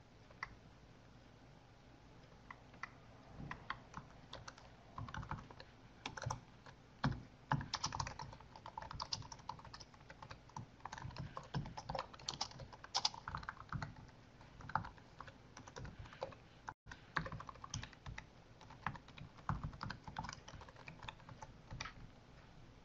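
Faint typing on a computer keyboard: short runs of keystrokes with pauses between them, starting a few seconds in.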